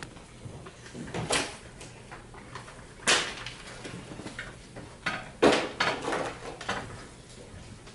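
Handling of papers and wooden stage furniture: soft rustles and footsteps with a few sharp knocks of wood, the loudest about five and a half seconds in, as papers are laid on a wooden table and the chair beside it is taken hold of.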